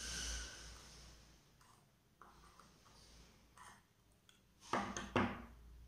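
Handling noise on a tabletop: a few faint clicks, then a quick cluster of louder knocks and clatter about five seconds in, as a screwdriver tester and a plug are handled and put down.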